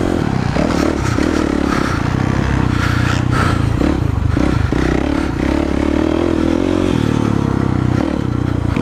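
Kawasaki KX450F four-stroke single-cylinder motocross engine being ridden hard, its note rising and falling with the throttle, with brief dips about three to four and a half seconds in.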